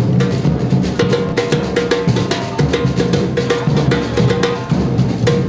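Street drum band playing a steady, dense rhythm of many rapid drum strokes.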